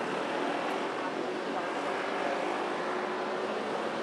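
Steady traffic noise from a busy multi-lane city road: passing vehicles blend into an even hum, with a faint engine drone underneath.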